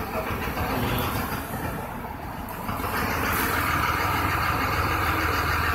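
Street traffic noise: a vehicle engine running steadily with a low hum, growing louder about three seconds in.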